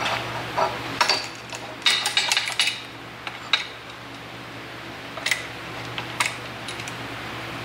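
Metal clanks and clinks of a locking C-clamp being set on a steel bar and plate, a cluster between about one and three seconds in, then a few single knocks. A steady low hum runs underneath.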